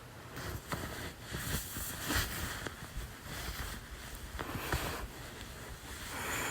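A person hiccuping repeatedly: short, sharp hiccups at irregular intervals, with breathing between them.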